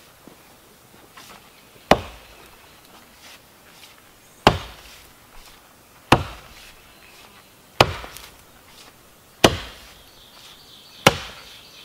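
Mattock chopping into root-filled soil: six sharp strikes, about one every second and a half.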